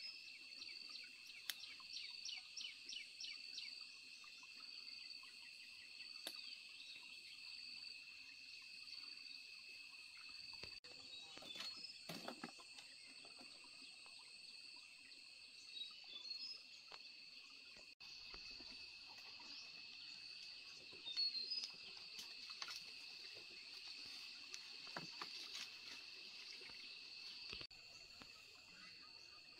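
Faint, steady chorus of insects singing in two high, even bands, with a quick chirping trill in the first few seconds. Scattered soft clicks and rustles of branches and figs being handled.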